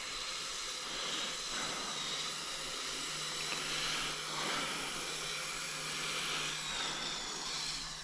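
Kyosho Blizzard RC snowcat driving over snow: a steady hissing whir from its electric drive and tracks, with a faint high whine that wavers in pitch as the throttle changes.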